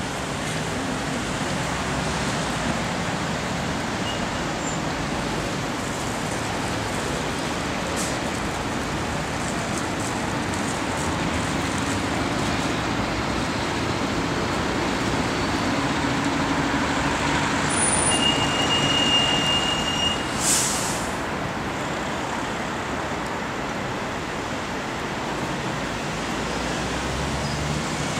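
City street traffic noise: a steady hum of passing vehicles. About two-thirds of the way through there is a brief high squeal, then a short hiss.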